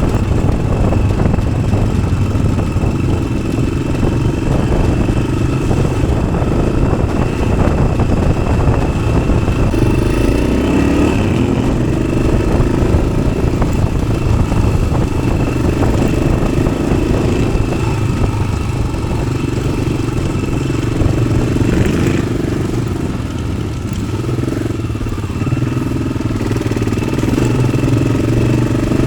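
A 1993 Yamaha XT600's single-cylinder four-stroke engine, fitted with an aftermarket Arrow exhaust, running steadily under way with small changes in revs.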